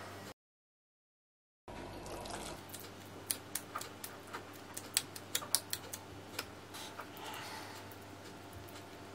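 Hands patting moist minced-meat patties into shape and pressing them into a glass baking dish: a quick run of small wet slaps and sharp clicks, thickest a few seconds in, after a short spell of total silence near the start.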